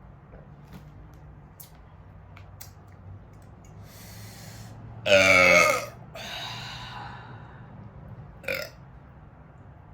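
A woman's loud burp about five seconds in, after drinking carbonated ginger beer, followed by a softer breathy exhale and a short sound near the end.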